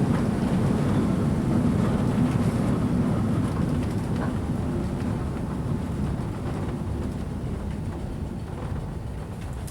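A British Rail Class 416 2EPB electric multiple unit's running noise heard from on board: a steady low rumble of wheels and running gear that slowly fades as the train slows.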